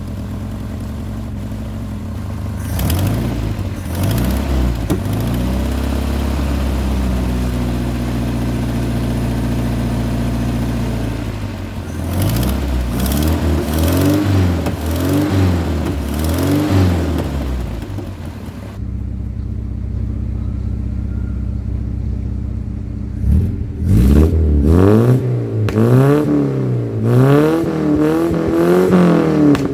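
Toyota Corolla Liftback's four-cylinder engine, converted to a Weber 36 DCD carburettor, running and being revved up and down in repeated blips, with steadier running in between.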